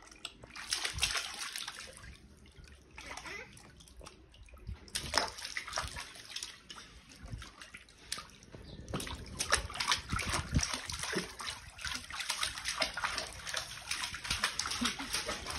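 Water sloshing and splashing in irregular, crackly bursts, sparser for a few seconds after it starts and busier from about five seconds in.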